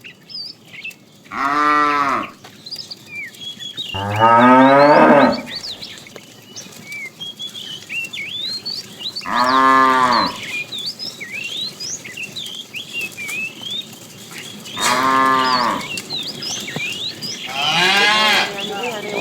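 Cows mooing: five long moos a few seconds apart, with short high chirps in between.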